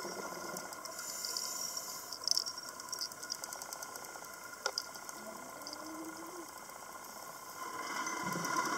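Underwater ambience heard through a camera housing: a steady hiss with a few sharp clicks and crackles around the middle. A louder rush of noise builds near the end.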